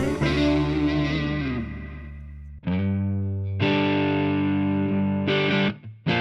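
Overdriven electric guitar chords played through a Donner Yellow Fall analog delay pedal. The first chord rings and fades out over a couple of seconds, then new chords are struck, one of them cut off short, followed by a brief gap and another chord near the end.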